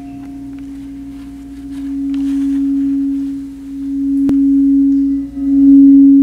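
Frosted crystal singing bowl played with a mallet: one steady low tone that swells and eases in slow waves, growing louder toward the end, with a single sharp tap a little over four seconds in.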